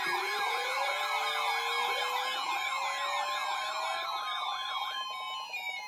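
Several electronic sirens sounding together: a fast yelp rising and falling about twice a second over slower rising and falling siren tones and steady tones. The yelp cuts off about five seconds in, leaving descending tones.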